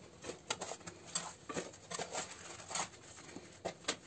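A kitchen towel rustles, with light scattered taps against a stainless steel lunch box, as puris are wrapped in the cloth and packed into the box. The sounds are quiet.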